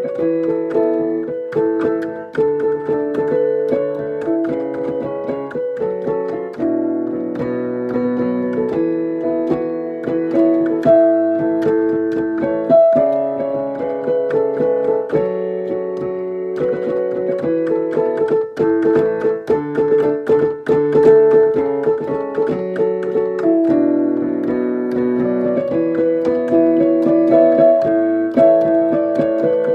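Piano being played: chords with a melody line above them, the notes held and ringing on as the chords change every second or so.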